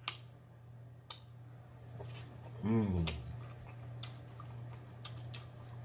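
Close-miked eating sounds: scattered wet mouth clicks and smacking while chewing, with a short hummed "mm" that falls in pitch about three seconds in. A steady low hum runs underneath.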